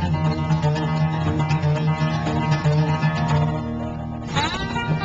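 Background music with held instrumental notes.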